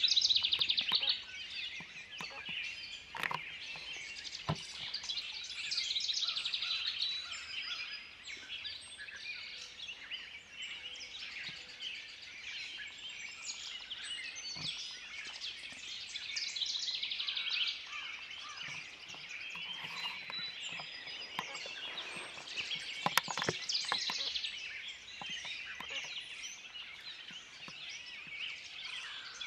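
A chorus of many songbirds singing at once: overlapping high chirps and trills, with a few short clicks in between.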